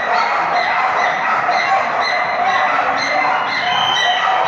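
Dogs barking rapidly and continuously, many barks overlapping, at a flyball racing arena.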